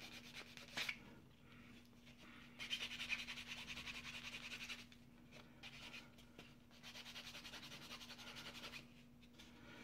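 Small plastic model-kit part rubbed quickly back and forth on a soft foam nail-buffing pad, sanding off nubs and roughening the surface to take primer. The rubbing comes in two spells of rapid, light scratchy strokes, the first starting about two and a half seconds in.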